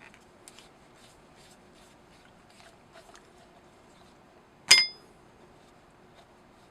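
Faint clicks of small metal tools and parts being handled, then one sharp metallic clink that rings briefly, about three-quarters of the way through.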